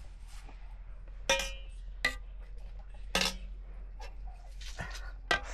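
Cookware and dishes clinking and knocking about five times, one strike ringing on briefly like metal.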